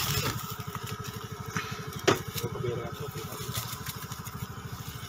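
A small engine idling steadily with a fast, even low pulse, and one sharp click about two seconds in.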